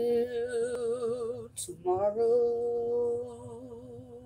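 A single voice singing a gospel song unaccompanied. It holds a long note with a strong vibrato, takes a quick breath about one and a half seconds in, then holds another long, wavering note that slowly fades.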